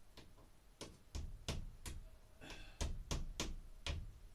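Light fixture being handled and fitted to a ceiling electrical box: about nine sharp knocks and clicks of metal parts at an uneven pace, with a short squeak about halfway through.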